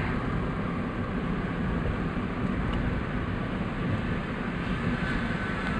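Steady road and engine noise of a car driving in traffic: an even low rumble with a faint hiss.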